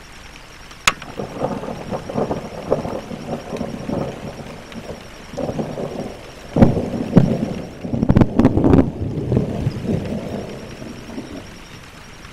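Volcanic eruption rumbling in low, surging waves, with a sharp crack about a second in and the loudest surges past the middle, fading near the end.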